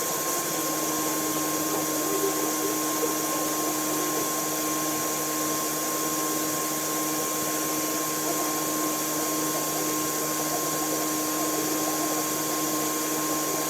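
Machine tool running steadily during the machining of a skeleton stock: a constant rushing noise with a fixed high whine and lower hum that does not change.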